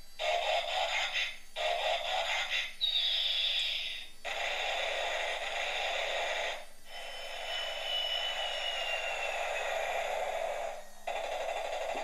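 Toy transforming robot airplane playing its electronic music and sound effects through a small tinny speaker, in several short phrases broken by brief pauses, with a falling whistle about three seconds in and a longer falling tone later.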